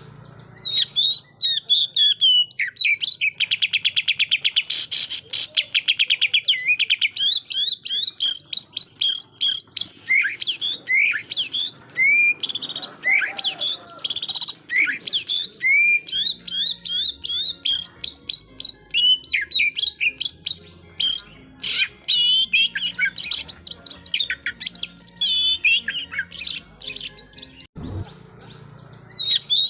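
Oriental magpie-robin (kacer) singing a fast, varied song of whistles and chirps, delivered in the rapid-fire 'tembakan' style, with a long rapid trill a few seconds in. It pauses briefly near the end.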